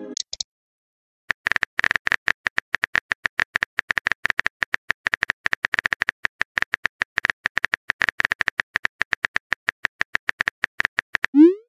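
Rapid keyboard-typing clicks, the typing sound effect of a text-messaging chat story, running in a fast, steady stream for about ten seconds after a short pause. A short rising swoop, the message-send sound, starts just before the end.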